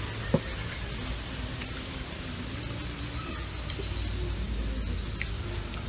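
A bird gives a high, rapid trill lasting about three and a half seconds, over a steady low outdoor rumble. A single sharp knock sounds just after the start.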